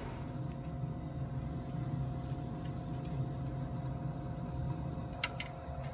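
Two-stage gas furnace running on first stage: a steady motor hum with a low drone and a higher steady tone. Two light clicks come near the end.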